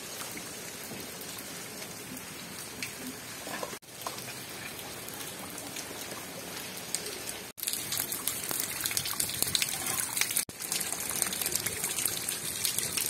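Rain falling with a steady hiss. From about seven and a half seconds in it grows louder and crackly as drops splash into standing floodwater. The sound cuts out for an instant three times.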